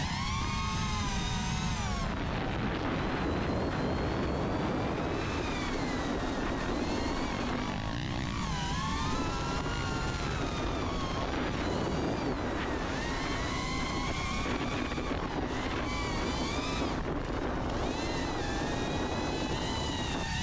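FPV racing drone's propellers whining, the pitch rising and falling constantly with throttle, over a steady rush of wind and dirt bike engines running.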